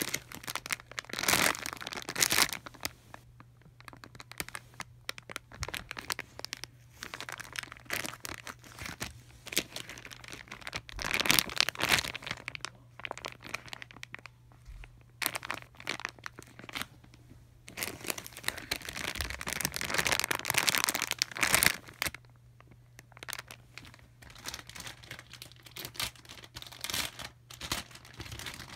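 Crinkly plastic packaging of squishy toys being handled and crumpled, in irregular bursts of rustling. It is loudest near the start, about eleven seconds in, and again from about eighteen to twenty-two seconds.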